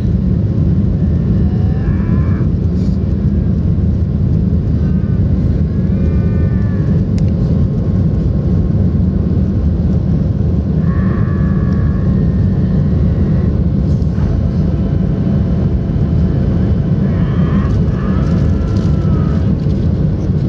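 Cabin noise of a Boeing 737-700 climbing after take-off: a loud, steady rumble of airflow and its CFM56-7B turbofan engines, heard from a window seat beside the wing.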